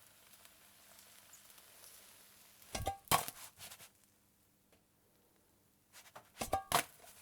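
Meat frying in a pan with a faint, even sizzle that thins out about four seconds in. It is broken twice, about three seconds in and again about six seconds in, by a quick cluster of sharp knocks and clinks against the pan with a brief ring.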